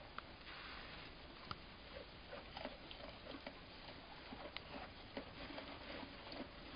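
Faint rustling of straw bedding with scattered small clicks as two pygmy goat kids shift while lying down, over a steady low hiss.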